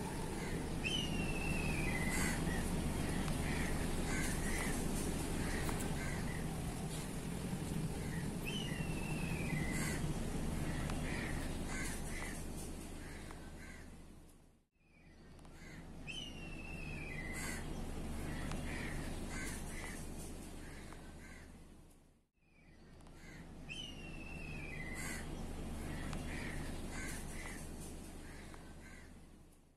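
A bird calling: a whistled note slides down, then three or four short notes follow, repeated about every seven to eight seconds, four times in all. A steady low background rumble runs under it.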